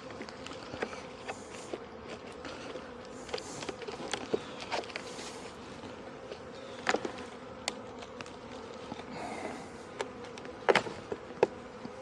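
Honeybees buzzing steadily around an open hive, with scattered sharp clicks and knocks of a metal hive tool prying propolis-stuck wooden frames loose, the loudest two near the middle and near the end.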